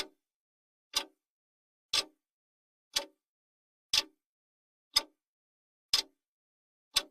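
Clock ticking once a second for a countdown timer: sharp, evenly spaced ticks with silence between them.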